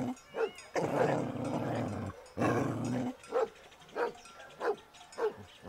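Pit bull-type dog growling in two long stretches, then barking several short, sharp barks about half a second apart.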